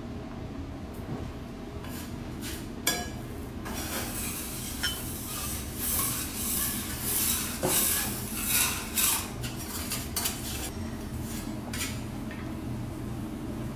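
A metal spoon scraping and scooping fried rice in a ceramic bowl, with a few sharp clinks of metal on china; the scraping is densest and loudest about halfway through. A steady low hum runs underneath.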